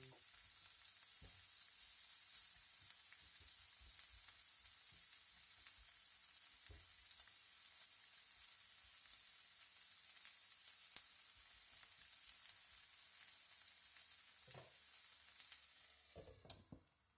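Chopped green bell pepper and onion sizzling in oil in a frying pan, with a few light taps of a utensil. A few knocks come near the end, and the sizzle stops just before the end.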